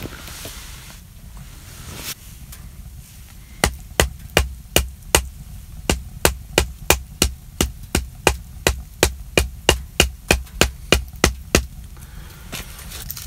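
Batoning: the spine of a knife set into the end of a branch is struck over and over to split the wood. About 25 sharp wooden knocks at roughly three a second begin a few seconds in and stop near the end.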